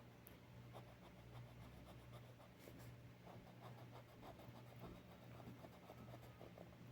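Colored pencil shading on paper: faint, quick back-and-forth scratching strokes.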